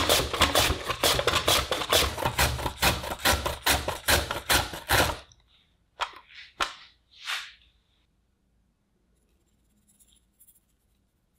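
Raw potato pushed back and forth across a julienne mandoline blade: a quick run of rasping cuts, about three a second, that stops about five seconds in. Three short swishes follow, and near the end a faint patter of salt sprinkled onto the shredded potato.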